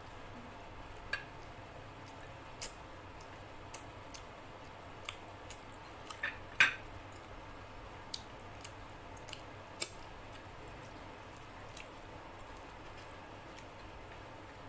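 Fingers pulling apart curried chicken and tearing and dipping luchi in a glass bowl of chicken curry: scattered small sharp clicks and taps, the loudest a short cluster about six seconds in.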